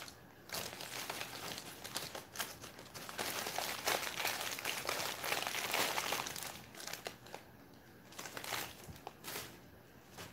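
Paper bags being handled and crinkled, busiest through the first two-thirds, then thinning out to a few light rustles.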